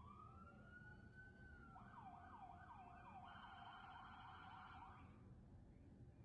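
Faint emergency-vehicle siren: a slow rising wail, then a few quick repeated sweeps about three a second, fading out around five seconds in.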